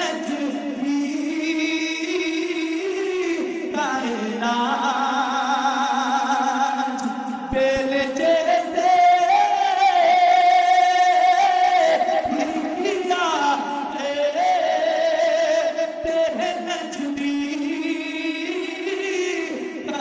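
A man singing Urdu devotional verse (naat) unaccompanied, drawing each line out in long held notes with ornamented glides.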